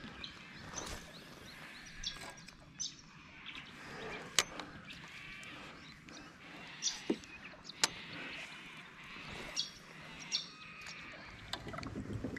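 Quiet ambience from a plastic kayak on still water. About nine sharp knocks and clicks of gear and paddle against the hull come at uneven intervals, with scattered short bird chirps.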